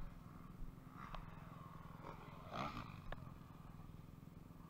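Dirt bike engines running at a distance, a low steady drone with a brief swell about halfway through. Two short sharp ticks are heard over it.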